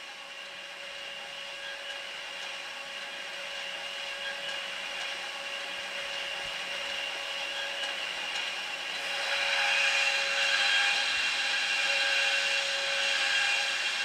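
Wandres linear-brush glass-cleaning machine running over a roller conveyor: a steady motor hum with a whine, growing louder, with a broad hiss from about nine seconds in as the brushes work on the glass.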